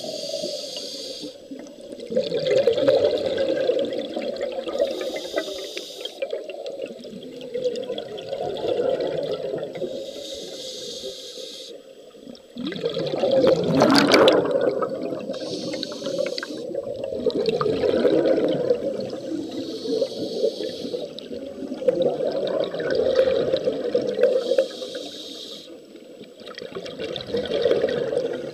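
Scuba diver breathing through a regulator underwater: a hiss on each inhale, about every four and a half seconds, each followed by the gurgling rumble of exhaled bubbles. About halfway through, a thick burst of exhaust bubbles rushes past, the loudest moment.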